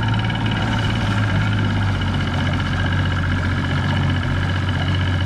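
Small boat's outboard motor idling, a steady low hum.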